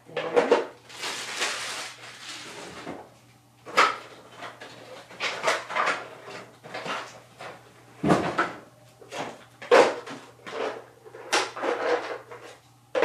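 Baby's first blocks toy being handled: a dozen or so irregular knocks and clatters of the blocks against their container, with a stretch of rustling about a second in.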